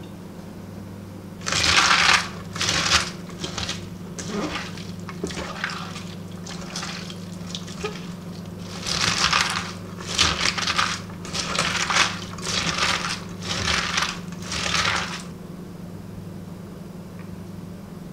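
A hand squeezing and kneading shredded cabbage and carrot soaked in salty brine in a steel bowl, working the vegetables soft for kimchi: wet squelching in separate bursts, a loud one near the start and then a run of about one a second, over a steady low hum.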